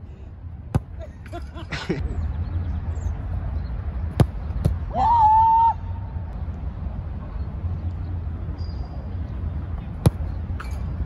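A soccer ball struck hard with the foot on a penalty kick about a second in, and again just before the end, each a single sharp thud. In between come a few knocks and, about five seconds in, a loud held shout, over a steady low rumble.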